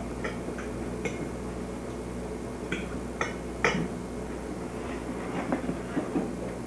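Dishes and cutlery clinking and knocking a few times, short sharp clinks over a steady low hum.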